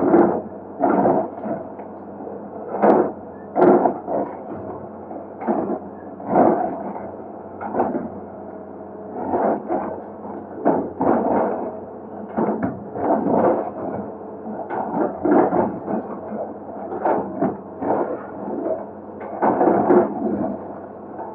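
Excavator at work breaking up a concrete bridge: its engine runs steadily under repeated knocks and scrapes of the bucket against concrete, coming irregularly about once or twice a second.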